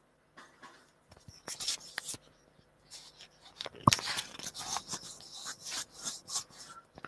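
Scratchy, crackling noise in irregular bursts over a troubled webinar audio line, with a sharp click about four seconds in.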